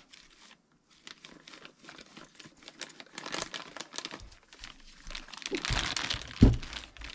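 Plastic packaging crinkling and rustling as gloved hands roll a lube-coated camshaft around in it, busier in the middle. A single dull knock comes near the end.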